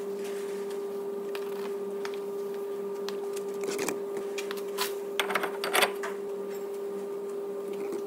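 Metal clinks and scrapes as a new front brake disc is slid over the wheel studs onto the hub of a Ford C-Max, in a cluster about four seconds in and a louder one around five to six seconds in, over a steady hum.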